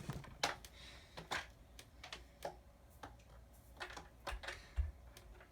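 Small plastic clicks and taps of a charging cable being handled and plugged into a clip-on headphone-jack LED flashlight: a sharper click at the start, then about ten more at uneven intervals, with a couple of low bumps near the end.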